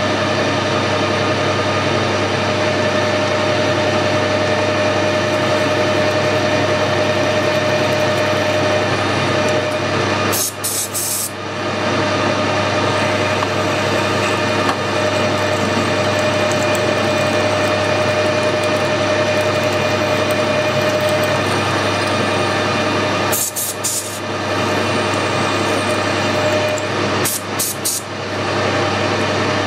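Harrison lathe running steadily with a constant hum while a centre drill and then twist drills are fed from the tailstock into a spinning aluminium pulley. The sound breaks off briefly with a click about ten seconds in and twice more near the end.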